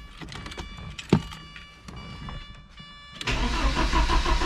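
Porsche 944's 2.5-litre four-cylinder engine being cranked by the starter on its first start after a new fuel pump was fitted; the cranking begins suddenly a little past three seconds in, after a quieter stretch with a sharp click about a second in.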